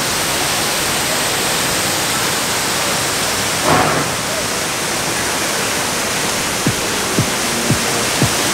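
Steady rush of falling water. About two-thirds of the way through, music with a beat of roughly two strokes a second comes in under it.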